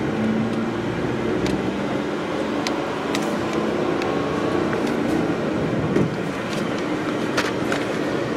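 Car running along a road, heard from inside the cabin: a steady engine and road-noise hum, with a few sharp ticks or rattles at irregular moments.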